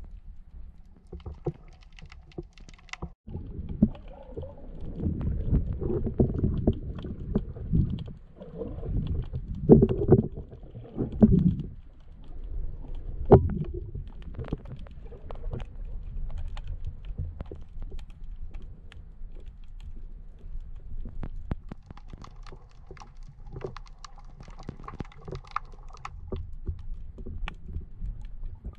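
Muffled underwater sound heard through a submerged camera: low rumbling surges of moving water, loudest in the first half, with scattered sharp clicks and crackles throughout.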